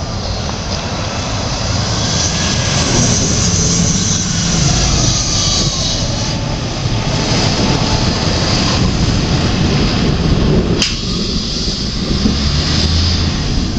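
Fire engine driving past and away, its engine noise loud and steady, with a faint siren wailing up and down in the first few seconds. A single sharp click about eleven seconds in.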